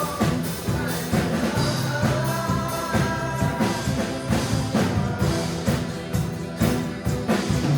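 Worship band playing a gospel song with drums and bass, a singer's melody carried over a steady beat.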